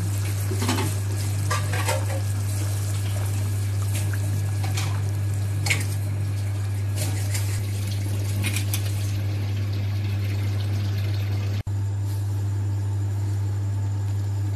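Cupfuls of water poured into hot sauce in a wok, splashing and bubbling in a series of short pours over the first nine seconds or so, then a spatula stirring. A steady low hum runs underneath throughout.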